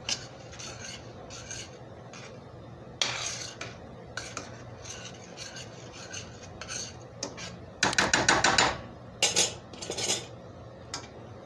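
Metal spoon stirring gravy in a stainless steel skillet, scraping the pan in repeated strokes, with a louder flurry of quick strokes about eight seconds in.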